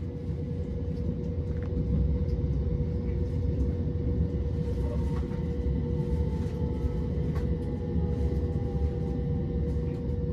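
Moving passenger train heard from inside the carriage: a steady low rumble of the wheels on the track with a constant hum, scattered faint clicks, and a faint falling whine in the middle.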